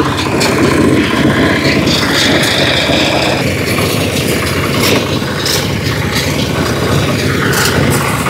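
Small single-cylinder engines of a two-wheel walking tractor and the homemade grass-cutting deck it tows, running steadily under load while mowing tall grass, with scattered sharp clicks.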